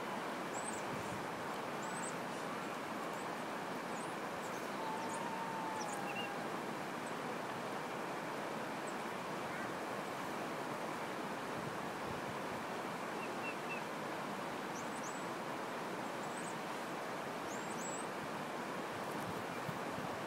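Steady rush of a shallow river running over rocks, with faint high bird chirps now and then.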